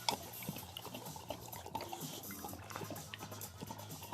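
A dog lapping gravy from a cup: a run of small, irregular wet licks and clicks, over a low steady hum.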